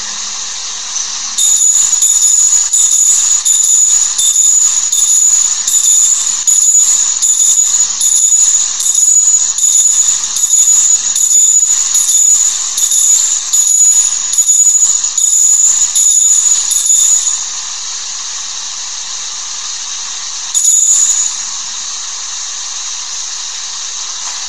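Altar bells rung at the elevation during the consecration, about twice a second for some fifteen seconds, then once more briefly near the end.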